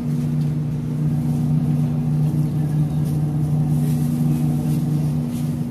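Steady machine hum with several fixed tones, typical of supermarket refrigerated display cases, with faint rustling as bundles of leafy greens are handled.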